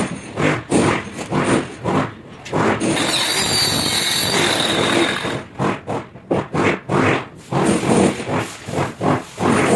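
Hand-sawing or scraping strokes, about two to three a second, broken about three seconds in by roughly two and a half seconds of a power tool running with a steady high whine.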